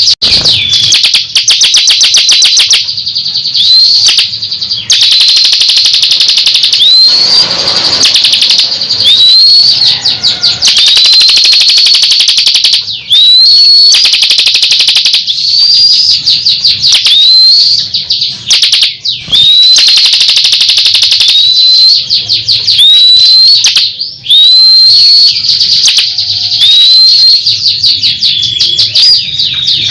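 A songbird singing loudly and without a break: a rapid chatter of high notes, cut every second or two by a short rising whistle. This is recorded training song of the kind played to caged songbirds.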